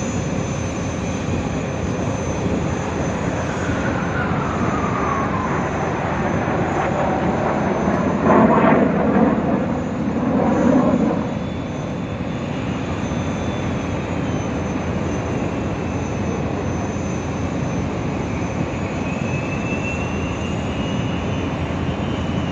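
Jet noise from a formation of BAE Hawk Mk132 jet trainers flying an aerobatic display: a steady rush with a falling whine a few seconds in, swelling loudest about eight to eleven seconds in, and a slowly rising whine near the end.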